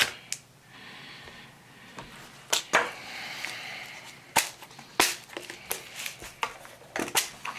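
A series of sharp clicks and taps from small hard plastic items being handled, about eight of them spread unevenly, as containers of nail-art rhinestones are picked up and set down.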